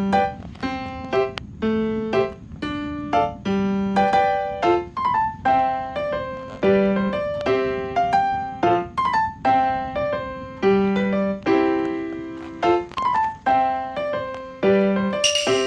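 Background piano music: a melody of struck notes over a steady bass line.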